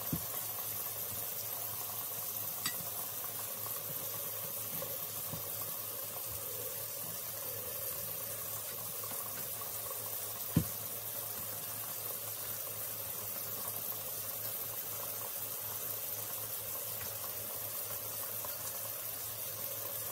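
Kitchen faucet running in a steady stream into the sink while a tumbler is washed by hand, with a few light knocks and one louder knock a little past halfway.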